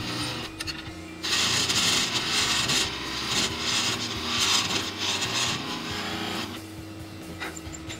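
Wood lathe running with a steady motor hum while the spinning wood is worked in a series of loud hissing passes, which ease off about two-thirds of the way through.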